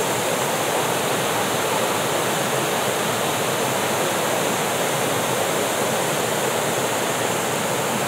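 Waterfall cascades rushing steadily, water pouring over low ledges into a pool.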